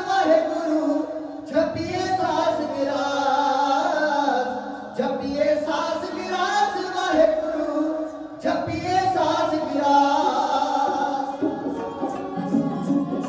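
Male dhadi singers singing in phrases to a bowed sarangi accompaniment, with short breaks between the sung lines. Near the end, regular strokes on the small hand-held dhad drums start up under the music.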